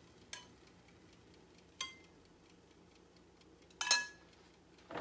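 Chopsticks knocking against a small saucepan as the last stir-fried food is scraped out into a bowl: three sharp metal clinks with a short ring, the loudest about four seconds in.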